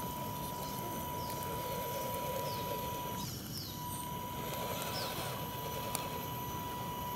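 RC scale crawler's electric motor giving a steady high whine as the truck creeps through mud. The whine cuts out for about half a second a little over three seconds in. Birds chirp a few short falling notes.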